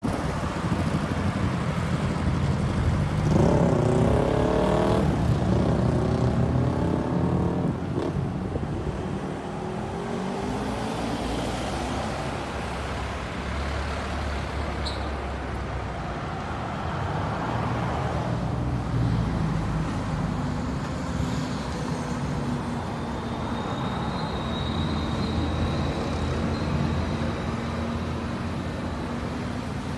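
Road traffic passing on a multi-lane road: cars and jeepneys driving by, with one vehicle's engine rising in pitch as it speeds up about three to five seconds in.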